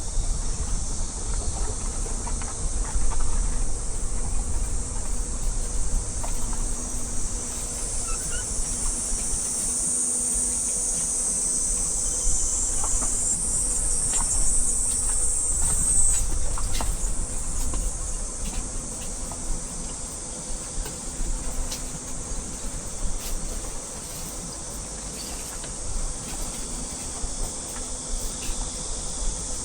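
A high-pitched chorus of insects, loudest for several seconds in the middle, over the low rumble of a car driving.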